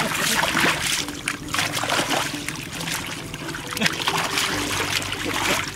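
Hands splashing and sloshing through shallow muddy canal water while groping in the mud for fish, in irregular repeated bursts.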